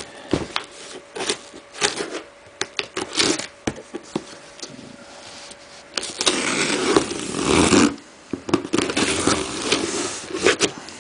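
Knife cutting the packing tape on a cardboard box, with scattered knocks and scrapes of the box being handled, then a louder, longer scraping stretch about six seconds in as the blade is drawn along the tape.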